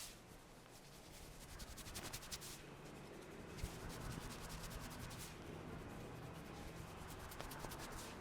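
Fingers rubbing and scratching briskly through hair and over the scalp during a head massage, a fast, crackly rustle that comes in thicker spells, with one brief knock about three and a half seconds in.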